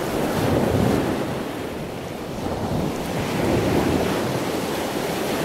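Ocean surf: waves washing in as a steady rush that swells twice.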